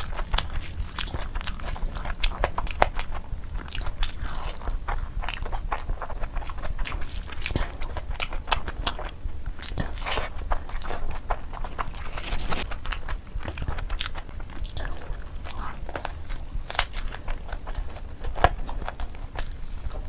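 Close-miked eating sounds: chewing and mouth clicks as biryani is eaten by hand, in a dense, irregular stream of small sharp clicks over a low steady hum.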